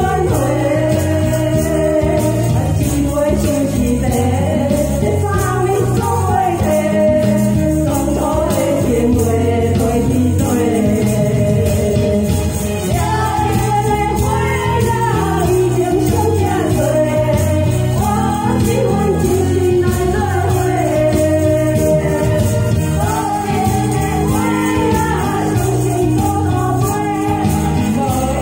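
Two women singing a duet into microphones over a recorded backing track played through a small PA speaker, with tambourines shaken along to the beat.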